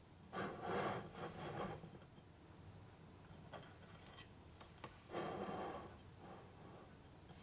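A knife scraping and cutting through a soft no-bake cheesecake and its biscuit base, in two short bursts with a few light clicks between them.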